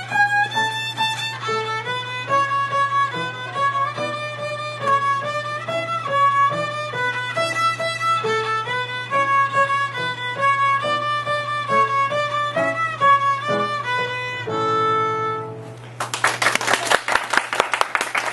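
A young child playing a small violin: a melody of short, separate bowed notes, ending on one long held final note that fades out about 15 seconds in. Audience applause starts right after it, near the end.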